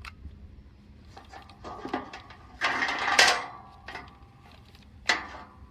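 Knocks and clatter from handling an angle grinder fitted with a flap disc, with one short loud scrape about three seconds in and a sharp knock near the end. The grinder is not running steadily: it seems not to be working.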